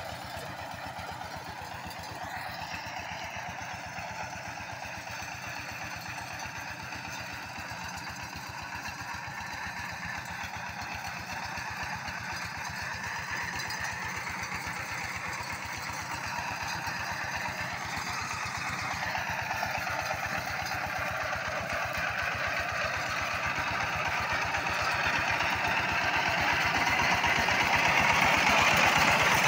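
Greaves 14 hp single-cylinder diesel engine of a power tiller running steadily while the tiller works a field. It grows steadily louder as the machine comes close.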